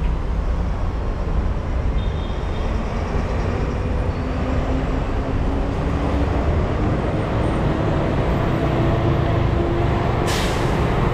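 City road traffic: a heavy vehicle's engine running with its tone climbing slowly, over a steady low rumble, and a short sharp hiss about ten seconds in.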